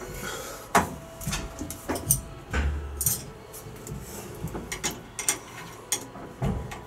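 Hand tools clinking and tapping on a Lancaster bomber's metal elevator control rod and lever while the rod is being unbolted from the lever: a string of irregular metallic clinks and knocks, with a dull thump about two and a half seconds in.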